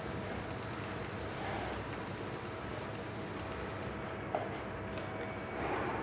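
Small clip-on desk fan running with an airy whir and a faint steady whine. Light, irregular clicks sound over it, with one sharper tick about four and a half seconds in.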